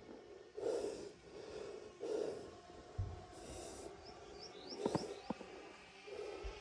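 A person breathing heavily in a few loud, separate breaths while hiding. About two-thirds of the way through come a few short rising bird chirps and two sharp clicks.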